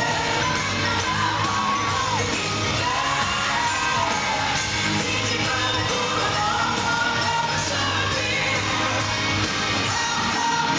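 Live pop-rock band playing, with electric guitar and drums under a woman's lead vocal, recorded from the audience.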